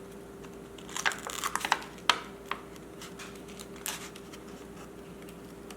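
Faux leather upholstery and a stitching awl being handled: crinkling and rustling of the material as the awl needle is pulled back out, with a cluster of crinkles about a second in, a sharp click near two seconds, and a few scattered ticks after that.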